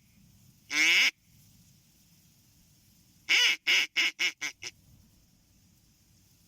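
Mallard-style quacking: one long quack, then a descending run of six quick quacks that get shorter and quieter, in the pattern of a hen mallard's call.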